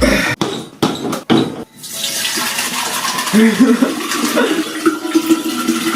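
A few short knocks, then a steady rush of running liquid starting about two seconds in.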